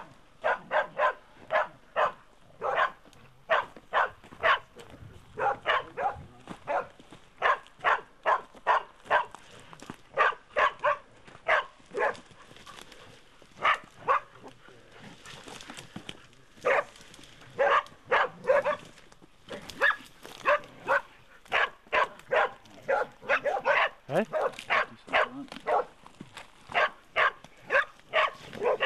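Pig-hunting dog barking over and over, short sharp barks about two a second with a brief lull midway: the steady barking of a dog holding a pig at bay.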